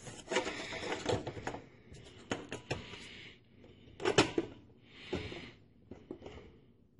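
Handling noise of plastic computer-case parts and a screwdriver: a series of light clicks and knocks with brief scraping, the loudest clatter about four seconds in.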